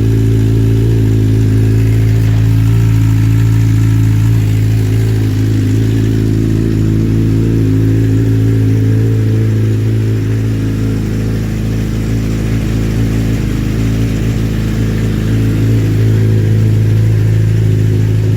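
Kawasaki ZX-10 inline-four sport bike engine idling steadily through an Arata full titanium exhaust.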